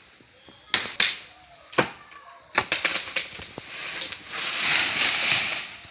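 A felled teak tree going over: three sharp cracks of splitting wood, a quick run of snapping and cracking about halfway through, then a swelling rush of leaves and branches near the end.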